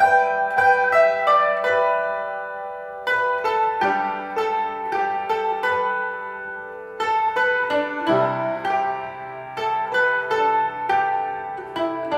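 Background music: a melody of quick, ringing notes, with a low bass line coming in about eight seconds in.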